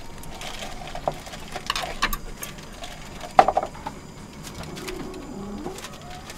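Plastic food packaging crinkling and rustling as instant-noodle packets and a sauce sachet are handled and opened, with scattered sharp crackles, the loudest about three and a half seconds in.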